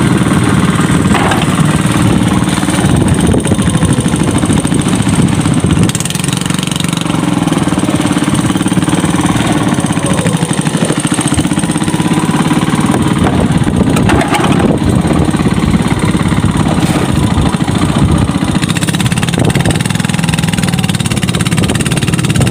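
Small long-tail boat engine running steadily, with a few light knocks over it.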